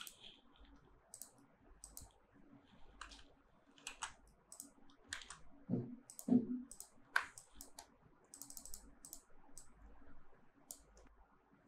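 Scattered clicks of a computer mouse and keyboard keys while editing text. A couple of louder clicks come just past the middle, and a quick run of several clicks follows about three-quarters of the way through.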